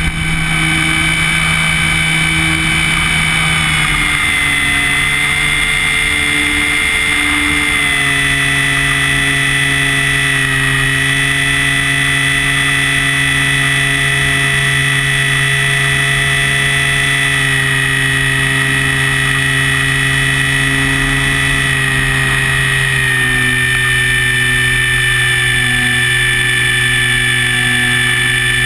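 Electric motor and propeller of a Multiplex FunCub radio-controlled model plane, heard from a wing-mounted camera at high throttle through takeoff and climb: a steady high whine over a lower drone, dipping slightly in pitch about four seconds in and again near the end.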